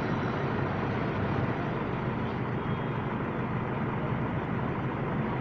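Steady low rumble of an engine running nearby, without a break.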